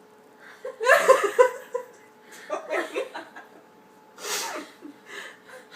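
Young women laughing in quick pulsing bursts, then a short sharp breathy burst about four seconds in.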